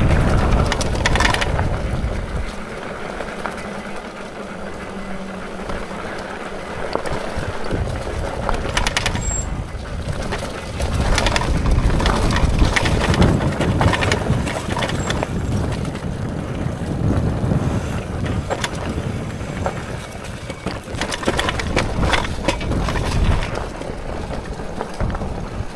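Hitway BK10S folding e-bike ridden down a rough, rocky off-road descent: tyres crunching over stones and the bike rattling and knocking over bumps. Wind rumbles on the microphone, easing off for a few seconds early on and then coming back.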